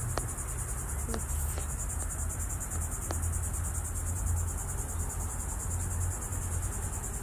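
Steady high-pitched chirring of insects, a fast, even pulsing, over a low, uneven rumble.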